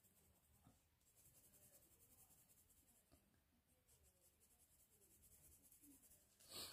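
Very faint scratching of a coloured pencil on paper, in small repeated shading strokes.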